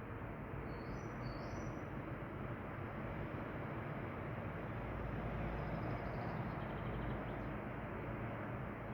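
Small birds chirping: two short rising chirps about a second in and a quick trill of notes around six to seven seconds. Both sound over a steady, even background rumble.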